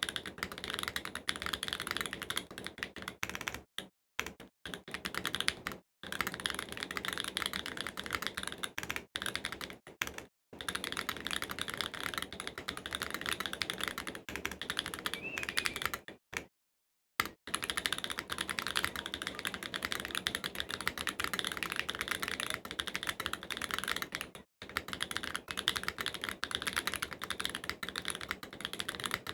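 Mode Envoy mechanical keyboard (aluminium plate, stock Obscura switches, Durock V2 stabilisers, GMK keycaps) being typed on quickly and continuously, with a few short pauses.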